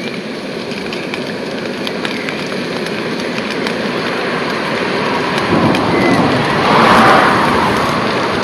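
Potatoes frying in hot oil in a pan on a camping gas burner: a steady sizzle with fine crackling that grows louder, peaking about seven seconds in.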